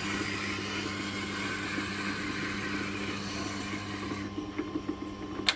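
Tormek T8 sharpening machine running with a steady motor hum, under the hiss of a knife blade being honed on its leather honing wheel until about four seconds in. Near the end a click, and the motor hum stops as the machine is switched off.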